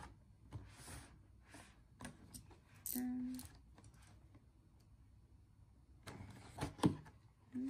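Cardboard boxes shuffled on a table, then a box cutter scraping and clicking as it slices through the paper seal on a cardboard box, about six seconds in.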